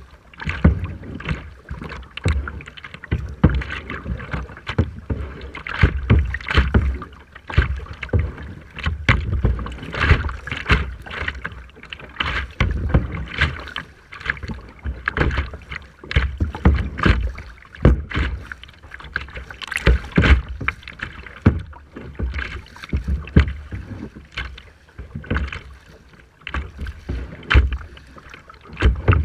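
Rough sea water splashing and sloshing close to the microphone, a dense run of irregular splashes, over the low rumble of strong wind buffeting the microphone.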